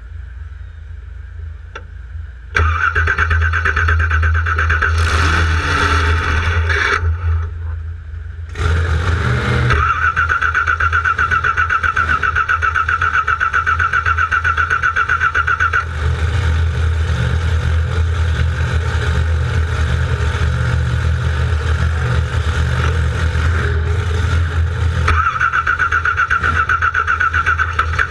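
Car engine being cranked over by its starter motor with a fast, even pulsing rhythm, in a long burst, a short break about five seconds in, then another long burst. There is no clear rise in engine speed, which fits an engine that is failing to start.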